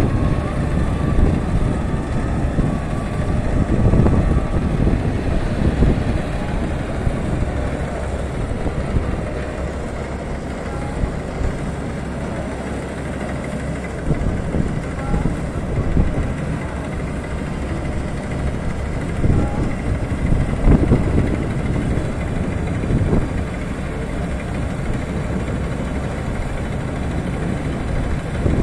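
Tracked combine harvester running steadily in the distance as it cuts the crop, heard as a continuous low engine drone with irregular rumbling surges.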